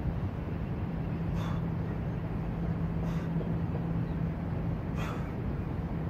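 Steady low rumble with a constant low hum, and three short breaths, about one every two seconds, from a man doing bench pike presses, one breath per rep.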